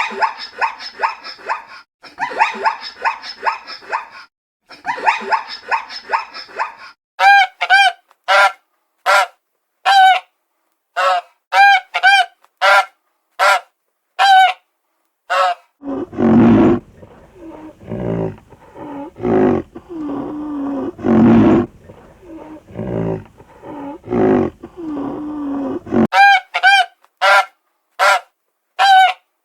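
Animal calls: fast yapping cries at first, then a run of loud, separate honks, one or two a second. About halfway through they give way for some ten seconds to deep, rough growling calls, and the honks come back near the end.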